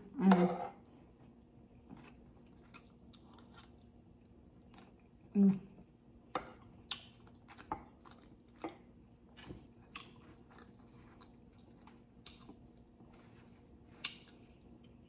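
Close-miked chewing of a mouthful of soft rice, beans and stewed beef, with wet mouth clicks and smacks scattered through. There is a short closed-mouth hum at the start and another about five seconds in.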